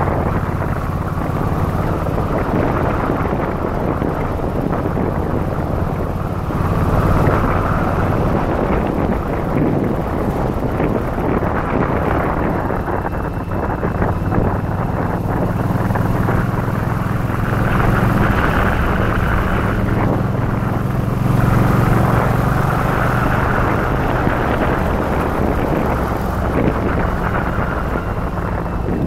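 Yamaha XV1100 Virago's air-cooled V-twin engine running under way, its note rising and falling several times as the throttle changes, with wind rushing over the microphone.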